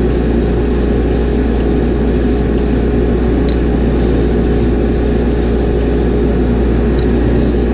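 Airbrush hissing in short on-off bursts, about two a second, as paint is sprayed onto a lure; it pauses for about a second around six seconds in. Underneath runs the steady hum of a spray booth's exhaust fan.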